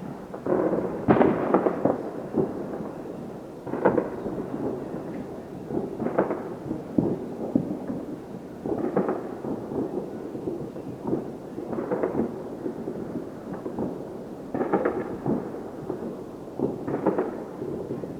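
Distant fireworks going off: irregular bangs about one every second or two, each trailing off in an echoing rumble, the loudest about a second in.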